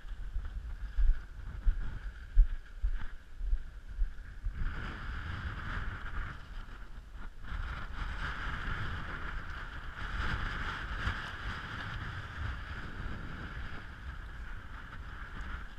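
Strong wind buffeting the microphone in low rumbling gusts, the loudest jolts in the first few seconds, then a steadier rushing of wind from about four seconds in.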